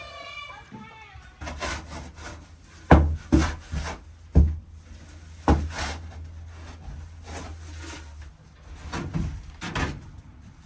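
A shovel scraping and knocking as it scoops soiled bedding out of a chicken coop: a series of scrapes and thumps, loudest about three to four seconds in and again near the end. A chicken gives a short call at the start.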